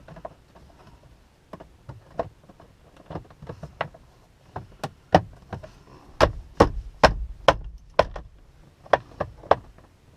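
Steering column cover pieces being handled and pressed into place: a run of irregular sharp clicks and knocks, sparse at first and thickest in the second half, with a few duller thumps among them.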